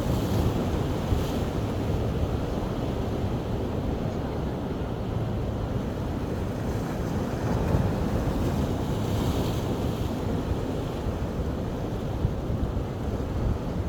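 Ocean surf washing onto a beach, with wind rumbling on the microphone. The hiss of the wash brightens near the start and again about nine seconds in.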